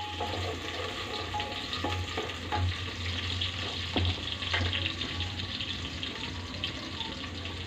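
Masala of onion, ginger-garlic paste and red chili powder sizzling and crackling in hot mustard oil in an open aluminium pressure cooker, with a few light clicks of a spoon stirring and a steady low hum underneath.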